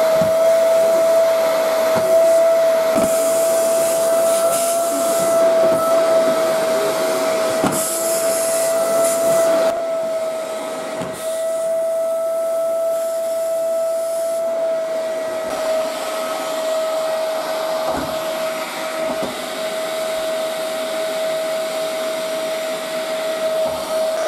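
Canister vacuum cleaner running steadily: a constant motor whine over rushing air, with a few light knocks along the way.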